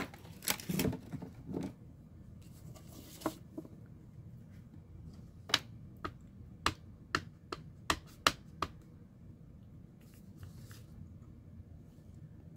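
Handling noises at first, then a rubber stamp on a clear acrylic block tapped repeatedly onto a pigment ink pad, about eight sharp taps over three seconds, to ink it.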